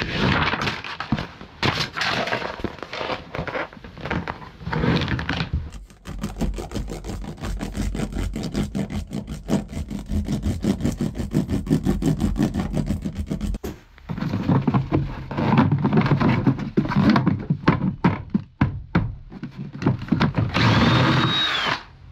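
Sound deadening mat being worked by hand: crackly handling of the sheets and their backing paper, then a hand roller pressed over the mat in fast, even strokes for several seconds. Near the end a cordless drill briefly whirs.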